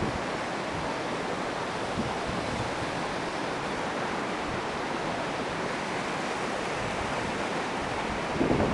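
A steady, even rushing noise outdoors, of the kind made by wind on the microphone or distant surf, with no motor whine standing out above it. It grows louder and more uneven near the end.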